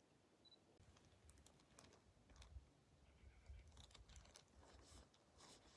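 Near silence: a few faint, scattered small ticks over a faint low rumble.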